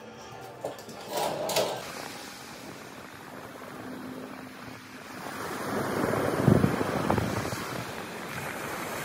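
Ocean surf washing up a beach, with wind rumbling on the microphone; the surf swells louder about six seconds in.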